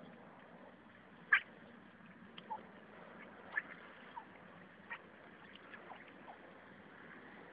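Ducks on a pond giving short quacks and calls, about half a dozen scattered through, the loudest a little over a second in, over a faint steady hiss.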